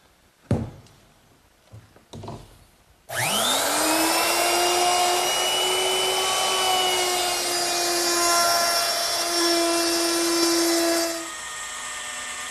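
A handheld electric router with a chamfering bit spins up about three seconds in, its pitch rising fast, then runs steadily while it cuts a chamfer along the edge of an oak board. Near the end it gives way to a quieter drill boring through a laminate countertop. A sharp knock sounds shortly after the start.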